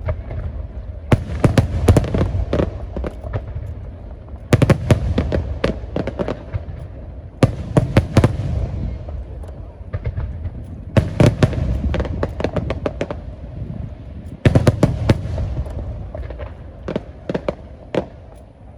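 Aerial fireworks display: volleys of shell bursts, each a quick run of sharp bangs, coming about every three to four seconds over a steady low rumble.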